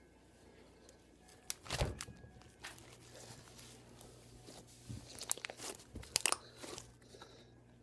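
Homemade slime being kneaded and squished by hand, giving irregular crackling pops and crunches. It starts about a second and a half in.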